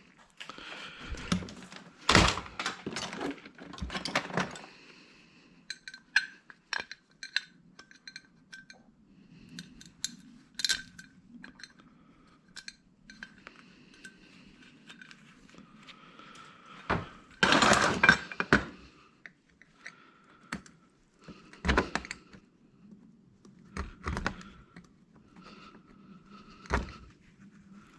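Metal hard-drive parts being knocked apart and handled: scattered knocks and small metallic clinks, with louder clattering spells about two seconds in and again around seventeen seconds.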